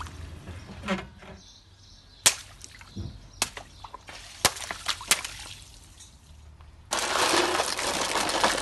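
Car tyre bursting water-filled balloons, several sharp pops a second or so apart. About seven seconds in, a loud, continuous crinkling crunch begins as the tyre flattens aluminium foil trays.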